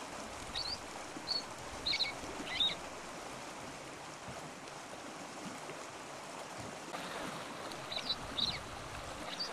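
Steady rush of open tidal-flat background with short high gull calls: four in the first three seconds and two more near the end.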